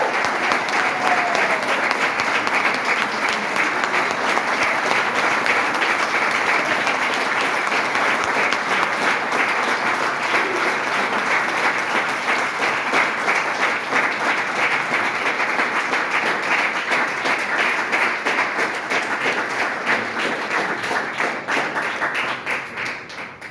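A congregation applauding with sustained clapping, which fades out near the end.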